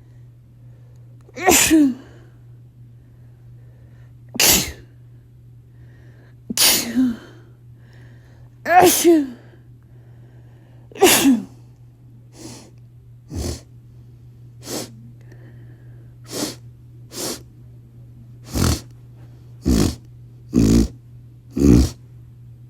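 A person sneezing over and over in a dust-triggered fit. First come five loud, voiced sneezes a couple of seconds apart, then a quicker run of shorter sneezes about a second apart.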